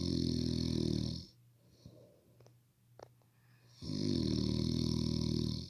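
Heavy snoring with a rough, fluttering rasp. One long snore ends a little over a second in, and after a pause of about two and a half seconds another of about two seconds follows.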